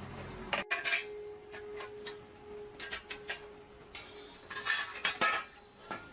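Irregular sharp metal clinks and taps of tools on bicycle parts, loudest clusters a little before one second in and again about five seconds in, over a faint steady hum.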